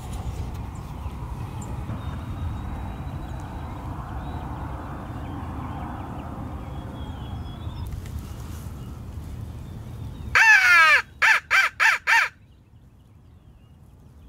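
Crow cawing, the loudest sound: one long raspy caw, then four short caws in quick succession. Before it there is a steady low rumble, which drops away suddenly as the cawing starts.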